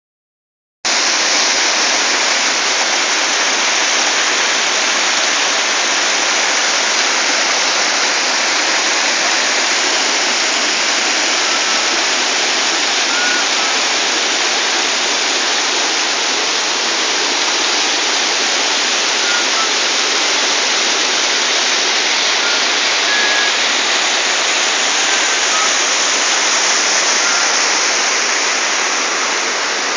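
Creek water rushing steadily over a small rocky waterfall.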